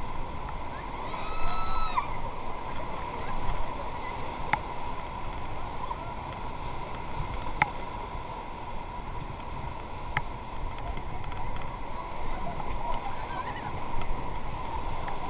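Whitewater rushing steadily around a river raft in rapids. A brief high call or shout rises and falls about a second in, and three sharp knocks come a few seconds apart.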